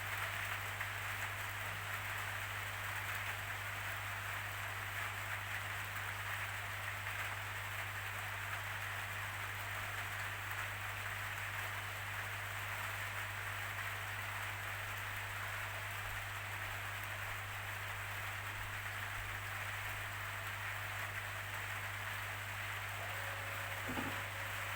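Steady rainfall, an even hiss that does not let up, over a constant low hum.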